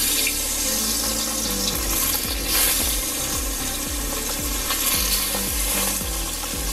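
Parshe fish (goldspot mullet) sizzling as they go into hot oil in a kadai for a light fry: a loud, steady hiss that starts suddenly as the first fish hits the oil, swelling briefly as more fish are added.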